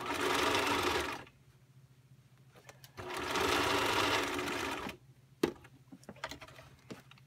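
Bernina 1010 home sewing machine running in two short bursts, the first about a second long and the second about two seconds, as it stitches two seam allowances together. A sharp click comes about five and a half seconds in, followed by a few lighter clicks.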